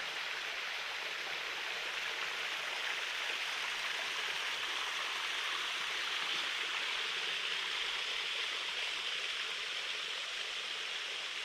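Creek waterfall, a steady rush of falling water.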